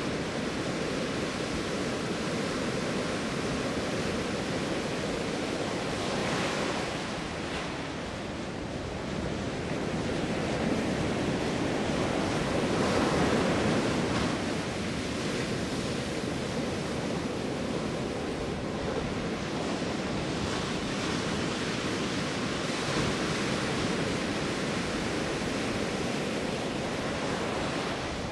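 Ocean surf breaking and washing up a sandy beach in a steady rush, one wave swelling louder about halfway through.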